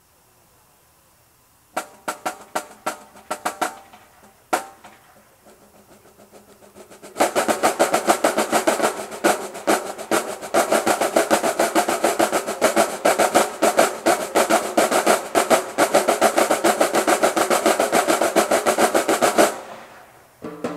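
College marching drumline. A few sharp separate hits come about two seconds in, then a soft building passage. From about seven seconds the full line plays loud, fast, dense drumming, which cuts off sharply near the end.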